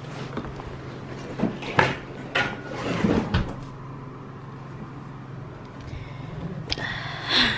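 Handling of a padded bike travel bag packed with a BMX bike: scattered knocks, bumps and rustles as things are moved about in it, the loudest a thump about three seconds in, over a steady low hum.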